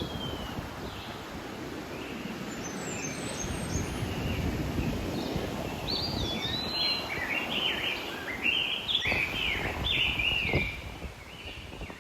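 Ocean surf washing in a steady rush, with a songbird singing a quick run of whistled chirps over it in the second half.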